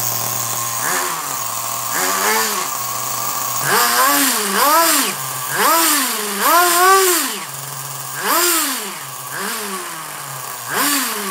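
Nitro engine of a Kyosho 1/7-scale Red Bull RB7 F1 RC car running, idling and revved in short throttle blips about once a second. Each rev rises and drops back to idle.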